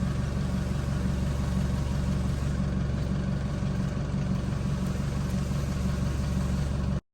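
A vehicle engine running at a steady speed with an even low hum, stopping abruptly near the end.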